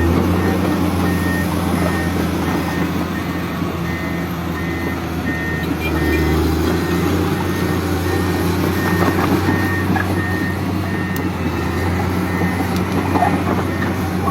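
Komatsu hydraulic excavator's diesel engine running steadily while its travel alarm gives a steady series of short high beeps, the warning that the machine is moving.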